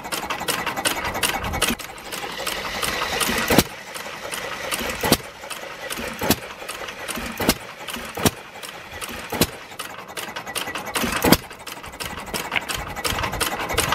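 A 1914 Novo 3-horsepower hit-and-miss gasoline engine running unloaded: a fast, steady ticking clatter of its valve gear, with a heavier knock every second or two. The heavier knocks are the firing strokes; with no load on it the governor holds the exhaust valve open and lets it fire only now and then.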